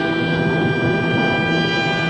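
Orchestral intro music: held brass chords over a timpani roll.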